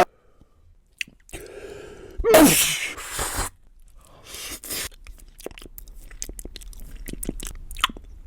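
A person sneezing once, about two seconds in: a breathy build-up, then a loud voiced 'choo' that drops sharply in pitch. It is followed by a run of small clicking and crunching sounds.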